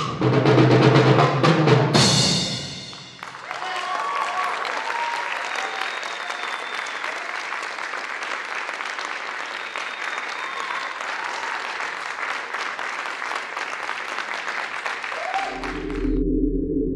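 The final strokes of a multi-percussion solo on concert toms and bass drum, ringing out about three seconds in. Then an audience applauds, with a few whoops. A steady electronic drone comes in near the end.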